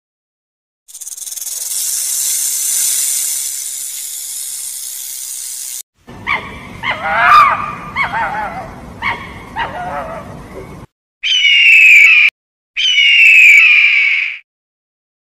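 Animal calls played one after another: a long hiss lasting about five seconds, then a run of short, wavering calls, then two loud calls that fall in pitch.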